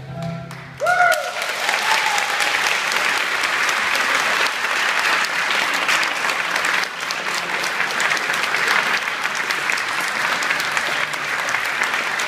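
Audience applauding, breaking out about a second in as the last note of the tango music dies away.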